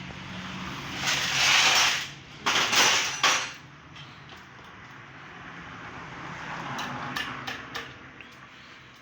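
Hands-on work on an opened motorcycle engine: two loud rushing, scraping bursts, then a softer rustle with a few sharp metal clicks near the end.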